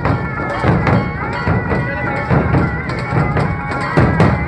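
A dhol-tasha troupe playing loudly: deep dhol drum beats recur under dense, sharp tasha strokes, with a held, reedy tone sounding over them.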